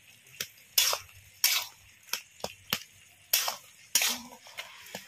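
Metal spatula scraping and pressing against a metal kadai as chopped taro stalks and greens are stirred and mashed in their own liquid: a run of short scrapes and taps, roughly one or two a second.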